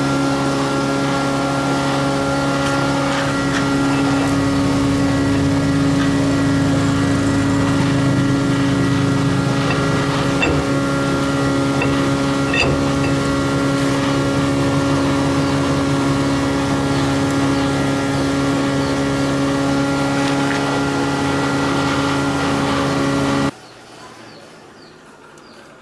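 A steadily running engine, a constant hum with a clear pitch, with a few light clicks of metal parts being handled. About two seconds before the end it cuts off suddenly, leaving quiet outdoor ambience with faint bird chirps.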